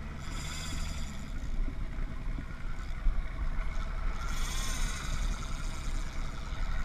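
Steady low rumble of a small fishing boat at sea, its motor running under wind and wave noise. Two short bursts of higher hiss come through, one near the start and one about four seconds in.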